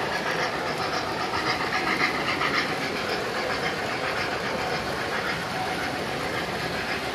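Model trains running on the layout's track, giving a steady rolling rattle of small wheels on rail.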